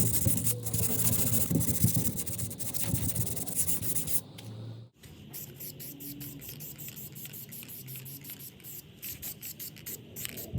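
Abrasive rubbing and scraping on a refrigerator's metal body during refurbishing. The sound comes in two pieces: a loud stretch of steady rubbing, then after a break a quieter run of short repeated strokes.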